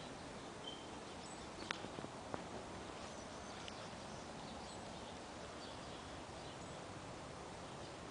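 Steady outdoor background noise with faint, scattered high bird chirps, and a few light, sharp clicks about two seconds in.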